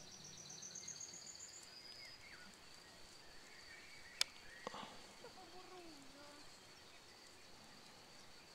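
Faint outdoor meadow ambience with a steady faint high tone. A bird's short trill rises in pitch over the first second and a half. A single sharp click about four seconds in is the loudest sound.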